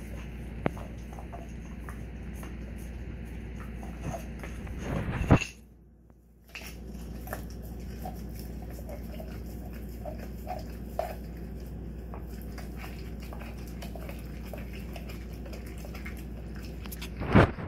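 Alaskan Malamute chewing and gnawing a raw beef rib: wet smacking with many small clicks of teeth on meat and bone. A louder rustling bump comes about five seconds in and again at the very end.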